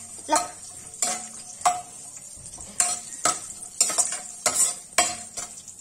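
Cashews sizzling as they fry in ghee, while a metal spoon stirs them around a pan with repeated scrapes and knocks against the metal, about two a second.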